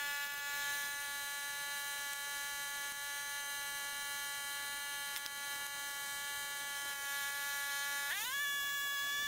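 A steady whine, one pitch with overtones, that steps up in pitch about eight seconds in.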